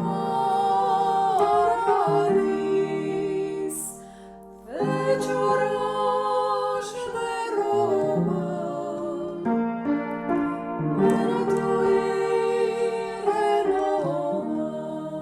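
A Romanian Christmas carol (colind) sung with keyboard accompaniment, with a brief pause about four seconds in before the next phrase.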